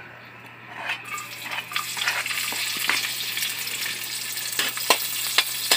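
Chopped onion and garlic hitting hot cooking oil in a steel wok: a steady sizzle starts about a second in and builds, with a few sharp clicks and scrapes as the pieces are stirred.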